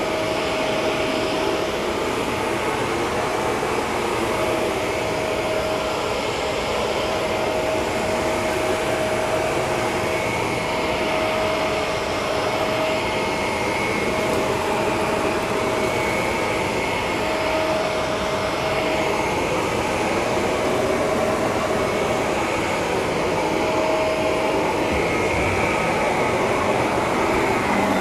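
Shark Rotator upright vacuum cleaner running steadily over carpet: a constant motor whine over rushing airflow.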